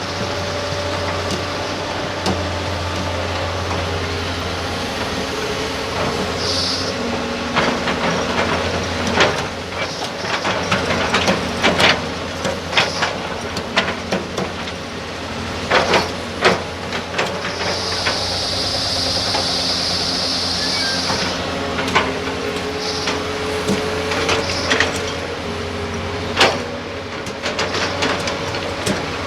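Excavator diesel engines and hydraulics running steadily while sand and rock are dug and loaded, with repeated knocks and clatters of stone. High hissing bursts come through, one lasting about three seconds past the middle.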